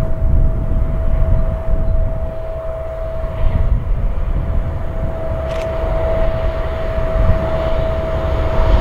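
NOHAB MY class diesel locomotive, with its EMD two-stroke engine, approaching from a distance at the head of a freight train. It gives a steady drone with one constant tone, over a gusty low rumble, and grows slightly louder toward the end.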